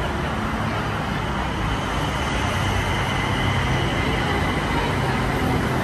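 Steady engine drone with a low hum under a constant wash of noise.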